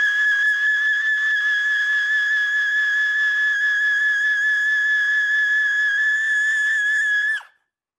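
A steady, high-pitched whistle-like tone with overtones, held without a break, that bends briefly downward and cuts off suddenly near the end.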